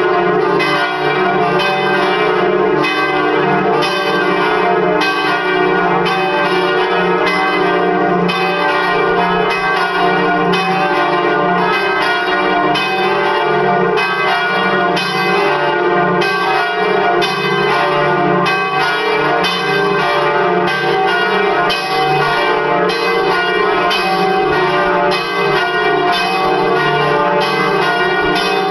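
Full swinging peal of four church bells, tuned to D, D sharp, F and G. Their strokes come several a second and overlap into one continuous, steady ringing.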